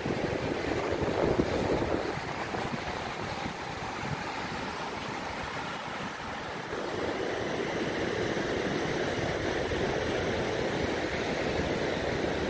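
Ocean surf washing up a sandy beach in a steady rush, with wind buffeting the microphone; it eases off about two seconds in and swells again near seven seconds.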